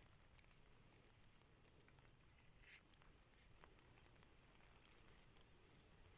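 Near silence, with a few faint scattered taps and clicks, two slightly louder about a third and halfway through.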